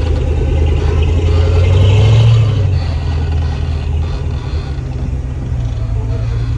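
Rock-crawling buggy's engine running under load as it climbs a steep rock ledge, the revs rising about two seconds in and then easing back.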